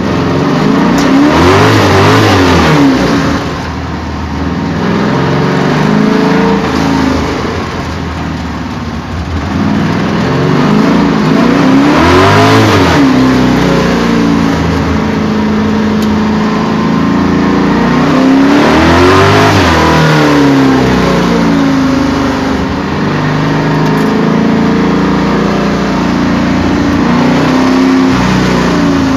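An engine revving up and falling back again and again, with three big rises in pitch, one near the start, one about twelve seconds in and one about nineteen seconds in, and smaller swells between.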